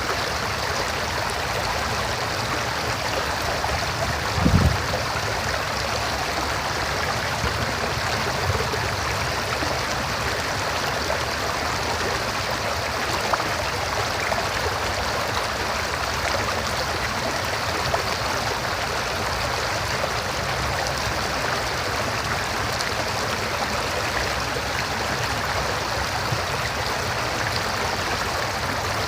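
River water rushing steadily, with a brief low thump about four and a half seconds in.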